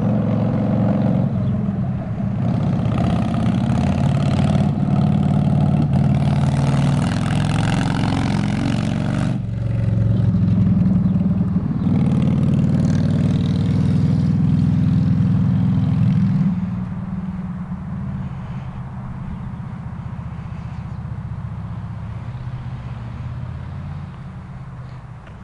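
Motorcycle engine approaching and passing close, loud, with a brief dip in the engine note about nine and a half seconds in before it pulls again. After about sixteen seconds it drops away and fades as it goes off down the road.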